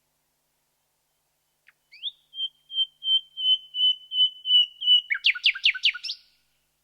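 Common nightingale singing one song phrase: a rising note about two seconds in, then a string of about eight whistled notes on one pitch that swell in loudness at about three a second, ending in a quick run of about six steep falling notes.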